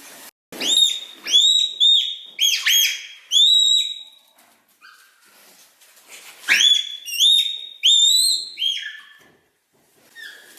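Red panda giving high-pitched squeaky calls in two bouts of quick, arched squeals, about half a dozen in each, with a short gap between them.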